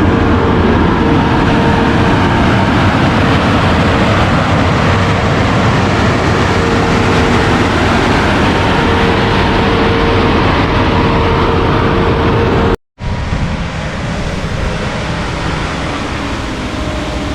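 Concrete pump truck and ready-mix concrete trucks running together, a loud steady diesel drone. It cuts out for a moment about thirteen seconds in and carries on somewhat quieter.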